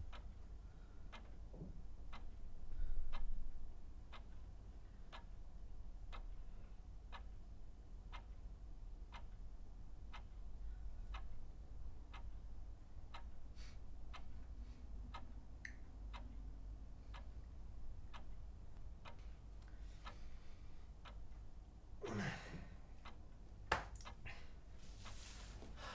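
Wall clock ticking steadily, about one tick a second, over a low room hum. Near the end comes a heavy breathy exhale, like a sigh, followed by a single sharp click.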